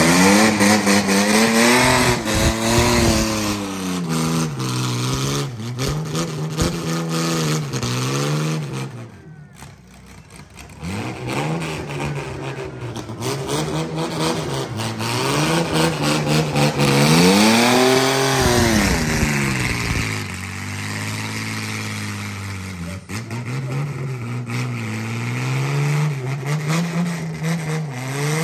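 Demolition-derby mini truck engine revving up and down over and over, about once a second at first, dropping away briefly about nine seconds in, then with one long, high rev a little past halfway.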